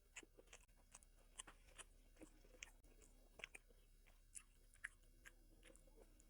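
Faint close-up chewing of food: a scatter of small, irregular clicks, a few each second.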